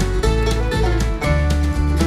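Upbeat background music with plucked strings in a country or bluegrass style and a steady beat.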